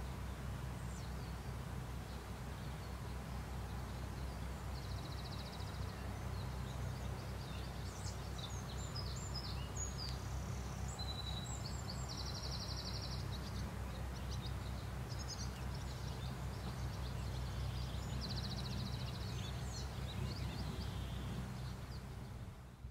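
Outdoor ambience: a steady low rumble under scattered high bird chirps, with a short buzzy trill three times, about every seven seconds. It all fades out just before the end.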